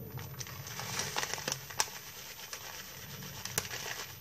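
Dry rolled oat flakes rustling as they are scooped into a cup, with a few light clicks of the cup.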